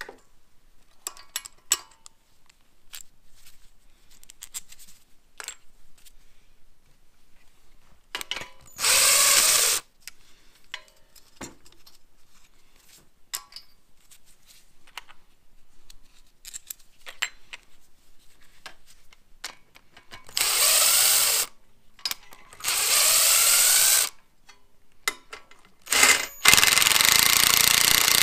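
Cordless Ryobi power driver spinning cylinder head bolts out of a small engine: several second-long bursts of the motor revving up, then a longer continuous run near the end, with light clicks of tools and bolts being handled in between.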